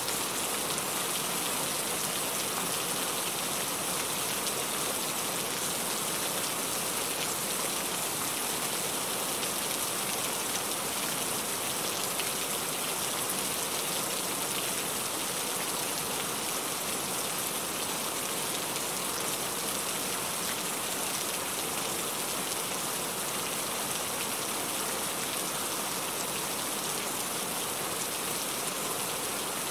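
Heavy rain falling steadily: an even, unbroken hiss of countless drops.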